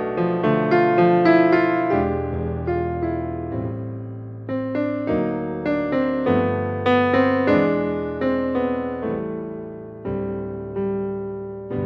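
Background piano music: notes and chords struck one after another and left to die away.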